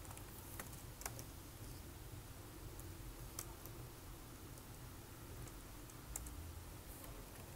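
Faint, scattered keystrokes on a computer keyboard, single clicks spaced irregularly a fraction of a second to a few seconds apart, over a low steady background hum.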